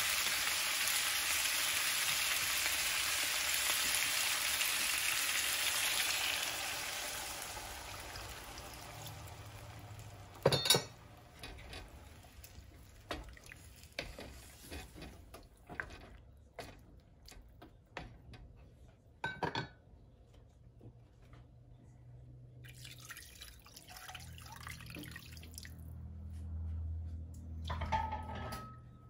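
Chicken pieces frying in a nonstick pan with a steady sizzle that dies away after about six seconds as water goes in for the broth. Then it is mostly quiet, with two sharp knocks about ten and nineteen seconds in and a faint low hum near the end.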